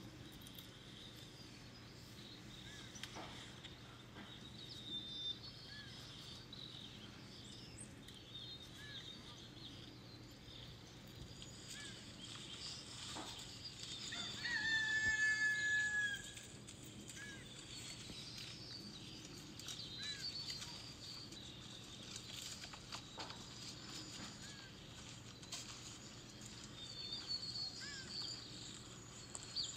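Farm ambience with small birds chirping now and then, and a rooster crowing once about halfway through, the loudest sound.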